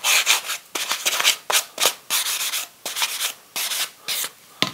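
Hand sanding with a fine sanding block rubbed along the edges of melamine-faced chipboard, in short back-and-forth scratchy strokes about two to three a second, knocking off the small burrs along the cut edges.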